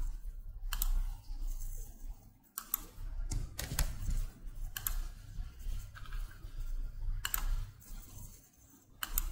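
Computer keyboard keys and mouse buttons clicking: a handful of short clicks, irregularly spaced, over a low steady hum.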